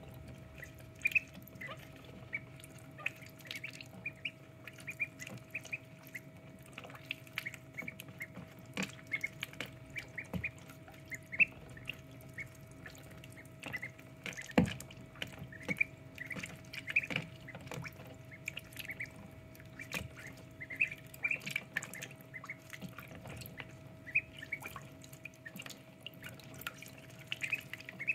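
Ducklings peeping in short, high calls while paddling and dabbling in a shallow tray of water, with small splashes, drips and knocks scattered through, the loudest about halfway through.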